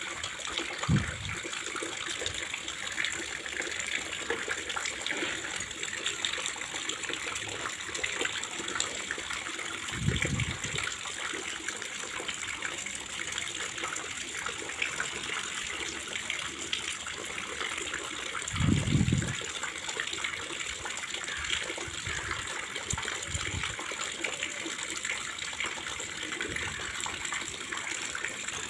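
Steady rush of flowing water with rain falling, around paper boats set afloat on rainwater. A few short low thumps break through, the loudest about two-thirds of the way in.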